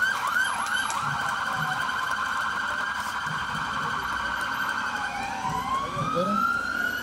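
Electronic police siren on a passing Federal Highway Police (PRF) pickup, changing tone as it goes: a quick yelp at first, then a rapid warble for several seconds, then a slow rising wail near the end.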